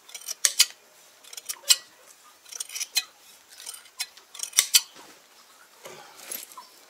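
Hand shears snipping through a sheep's wool: a series of quick, irregular snips, one to three a second.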